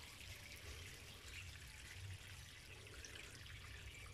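Faint trickling and dripping of shallow water in a tank being cleaned out.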